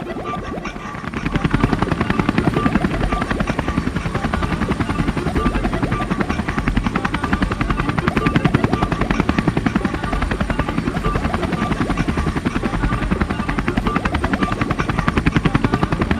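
Helicopter rotor sound effect: a fast, steady chopping that grows louder about a second in and then holds.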